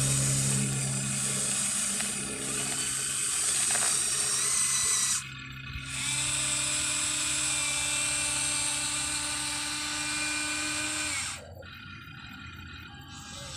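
Huina 1593 RC excavator's small electric gear motors whining as it works. They stop briefly about five seconds in, start again about a second later, and cut off near the end.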